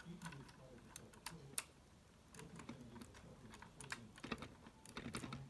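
Faint, irregular small plastic clicks of Lego pieces being handled and pressed together, with a quick cluster of clicks near the end.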